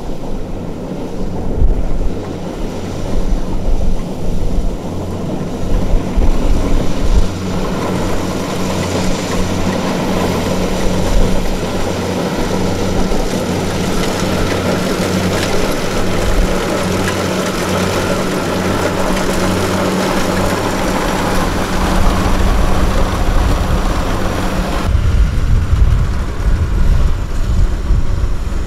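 Small farm tractor's diesel engine running steadily with a regular low beat, with wind buffeting the microphone. Near the end the sound changes abruptly to a heavier low rumble.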